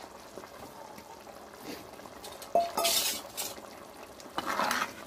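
Ladle stirring dried sardines into a clay pot of boiling kuzhambu gravy: a faint hiss of the simmering pot, a sharp clink about two and a half seconds in, then two short louder bursts of stirring.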